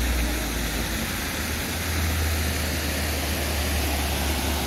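Steady rush of flowing spring water under a heavy, low rumble of wind buffeting the microphone.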